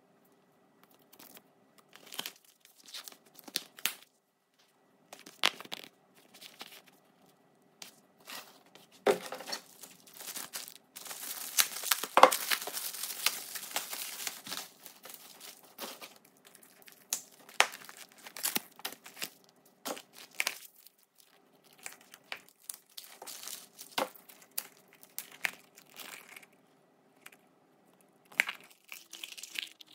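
Tissue wrapping paper crumpling and rustling as it is handled, densest and loudest in a long stretch around the middle. Scattered light clicks and taps come from small items being handled.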